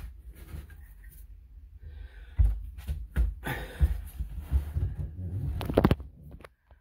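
Handling noise from a phone filming in an engine bay: a low rumble and rubbing, with several dull knocks, stopping about six seconds in.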